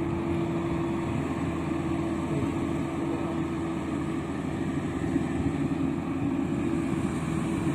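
Rice combine harvester's engine running with a steady, even hum while smoke is coming from the engine.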